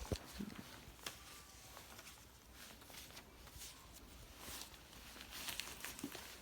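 Faint rustling with scattered light clicks and taps, a few near the start and a cluster of them about four and a half to six seconds in: small handling and movement noises in a quiet classroom.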